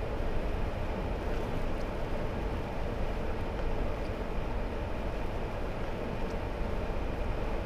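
Hummer H3 driving at a steady speed on an asphalt road: an even, unbroken rumble of engine, tyres and wind.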